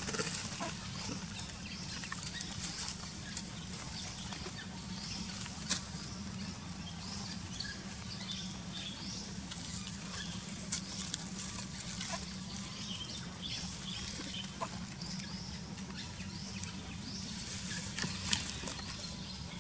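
Outdoor ambience: a steady low hum with many short, high chirps and squeaks scattered throughout, and a few sharp ticks, one about six seconds in and one near the end.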